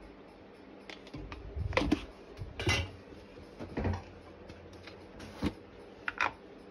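A handful of light taps and clicks, about a second apart, from a plastic measuring spoon and spice tubs being handled while turmeric is spooned into a pressure cooker pot.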